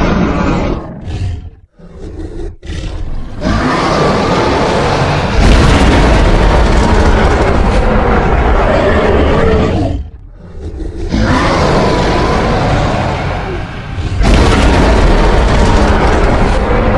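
Designed dragon creature sound effects: loud, rough roaring with a deep low rumble beneath it, breaking off briefly twice.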